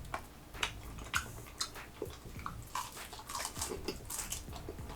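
Close-up chewing of crispy Korean honey butter fried chicken: a run of short, irregular crunchy clicks.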